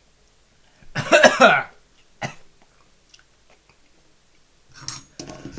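A man coughs once, hard, from the burn of the bird's eye chillies he has just eaten. The cough comes about a second in and lasts under a second, with a short, sharp sound about a second after it.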